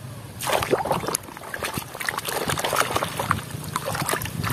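Water splashing and sloshing in a basin as a hand scrubs a muddy plastic toy under the surface, with irregular splashes and drips starting about half a second in.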